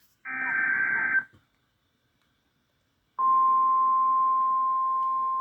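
NOAA Weather Radio emergency alert signal: a burst of SAME digital header data, a raspy warbling screech lasting about a second, then after about two seconds of silence the steady single-pitched 1050 Hz warning alarm tone starts and holds, announcing a warning about to be read.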